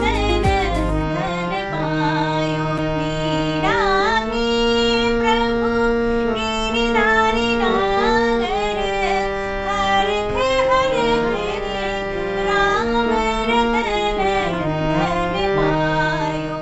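A woman singing an ornamented Indian melody while accompanying herself on a harmonium, whose held reed notes sound steadily beneath the voice.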